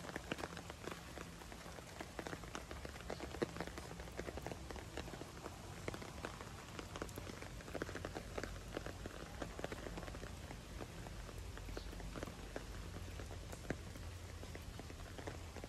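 Steady rain falling on a wet paved path, heard as many small, quick drop ticks over a soft hiss.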